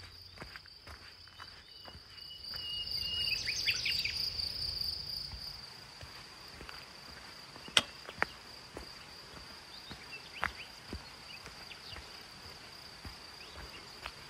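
Footsteps on a dirt forest trail under a steady high-pitched drone of insects. About two to five seconds in, a louder passage with quick high chirps swells and fades, and a single sharp snap sounds near the middle.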